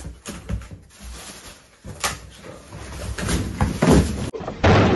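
A plastic carrier bag and a cardboard box being handled on a table: rustling, knocks and thumps, with a loud, short rush of noise near the end.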